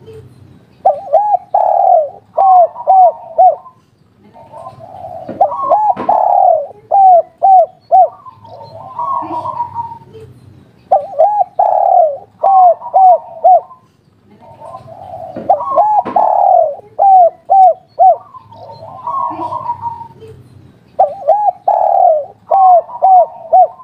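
Spotted dove singing its cooing song over and over. Each phrase is a rough, burry coo followed by a quick run of four or five short, clear coos, in the style keepers call "kuk 3". A new phrase starts every four to five seconds.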